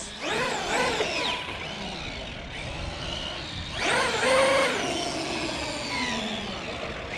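Traxxas X-Maxx electric RC monster truck's brushless motor and drivetrain whining through two bursts of throttle, the pitch rising and falling with each. The gear noise sounds a little tight on this brand-new truck.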